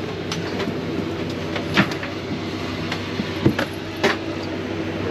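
Steady hum of the airliner's engines still running on the ground while passengers disembark, with three sharp knocks and clacks, about 2, 3.5 and 4 seconds in.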